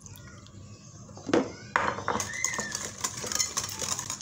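Metal wire whisk beating a thick mayonnaise-and-cream sauce in a ceramic plate, the wires clinking and scraping against the plate in quick strokes. It starts about a second and a half in with a couple of sharp clinks, then runs on fast and dense.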